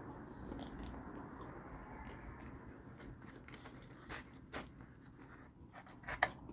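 Close-up chewing of a mouthful of deep-fried chimichanga: soft wet mouth clicks and smacks, with a few louder ones about four seconds in and near the end.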